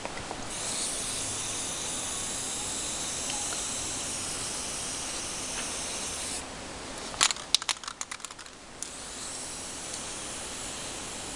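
Aerosol spray-paint can hissing steadily as paint is sprayed. About seven seconds in the spray stops and the can is shaken briefly, its mixing ball rattling in quick clicks, and then the hissing spray resumes.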